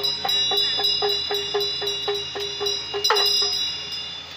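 Tibetan ritual hand drum (damaru) rattled in a quick, even rhythm of about four beats a second, with a ritual hand bell (drilbu) ringing over it and struck again about three seconds in. Both fade near the end.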